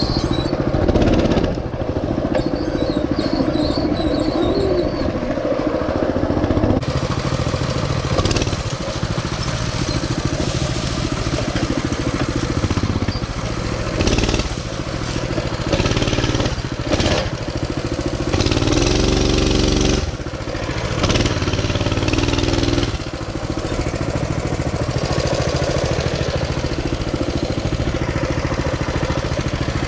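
Mini bike engine running as it is ridden, revving up and down, with the pitch rising and falling several times in the second half.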